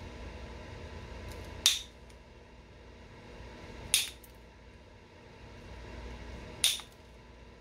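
Stone point being knapped: three sharp, glassy snaps about two and a half seconds apart, each a flake breaking off the edge of the stone.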